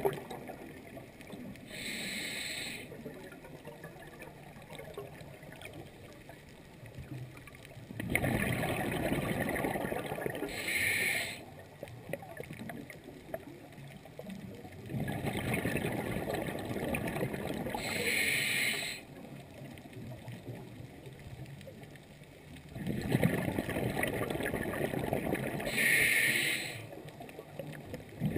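A scuba diver breathing through a regulator underwater. There are three long bubbling rushes of exhaled air, each lasting a few seconds, and four short high hisses of inhalation, about one breath every eight seconds.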